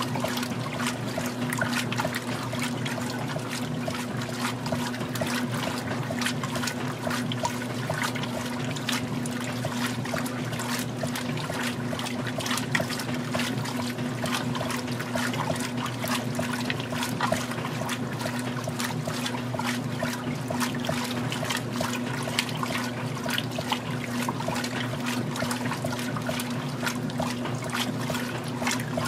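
Magic Chef 20-pound top-load washer agitating its rinse load: water sloshing and splashing around the agitator, over a steady motor hum.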